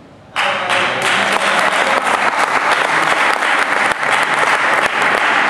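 Audience clapping, starting suddenly about half a second in and keeping up steadily.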